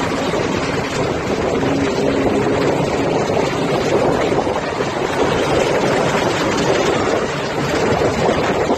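Steady road and wind noise of a vehicle driving at highway speed, with a low engine drone underneath.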